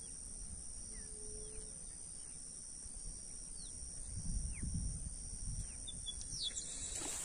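Rural ambience at the water's edge: a steady high-pitched insect trill and a scattering of short, falling bird chirps. A brief low rumble of wind on the microphone comes about four seconds in.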